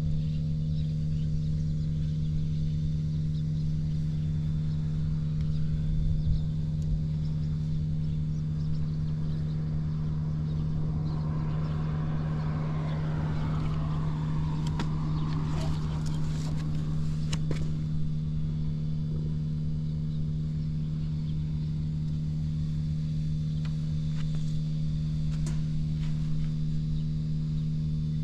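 Suzuki GN125H's single-cylinder air-cooled four-stroke engine idling steadily, which the seller presents as free of abnormal noises. A higher sound swells and fades briefly about halfway through.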